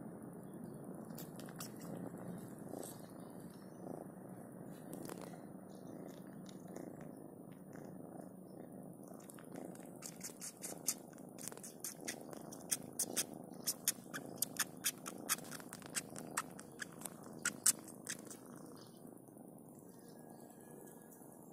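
Kitten purring steadily, with a run of quick wet sucking clicks for several seconds in the second half from a kitten suckling another kitten's paw.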